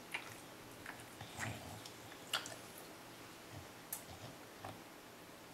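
English bulldog licking its lips and smacking its mouth after eating ice cream: a scattering of short, sharp mouth clicks and smacks, the sharpest a little past two seconds in.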